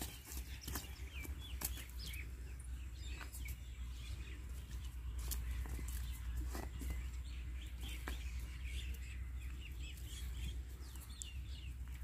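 Many small birds chirping and twittering, quick short calls scattered throughout, over a steady low rumble.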